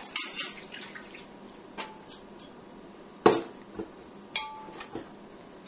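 A metal spoon clinking against a steel bowl and a glass blender jar while soaked rice and urad dal are spooned into the jar: about half a dozen separate knocks, the loudest about three seconds in, a couple of them leaving a short metallic ring.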